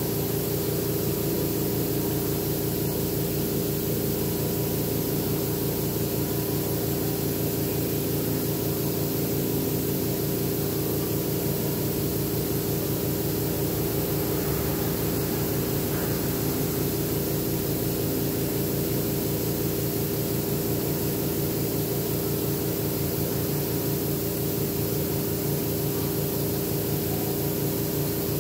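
Air compressor running steadily for an airbrush, a constant hum with a fast, even pulse beneath it.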